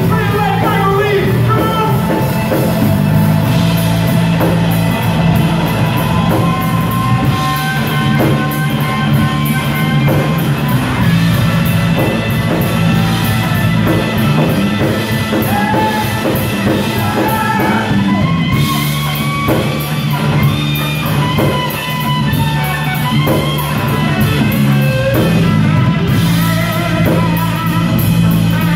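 Live blues band playing: electric guitar lines over drum kit and bass, with trumpet and saxophone.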